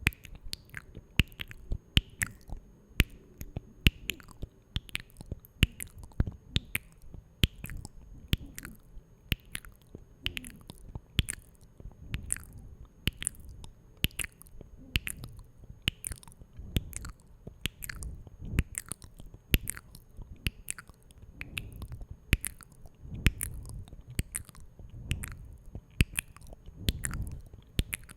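Close-miked ASMR mouth sounds: a steady run of short wet clicks and smacks, two or three a second, over a soft low rustle.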